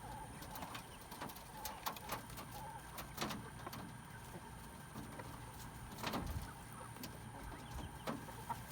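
Quail giving faint, soft calls, with scattered light clicks and scratches.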